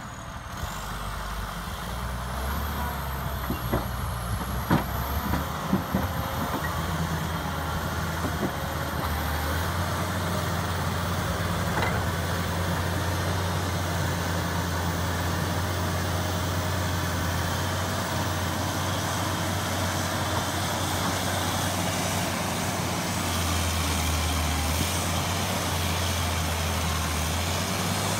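John Deere 670CH motor grader's diesel engine running steadily as it grades dirt, with several sharp knocks a few seconds in.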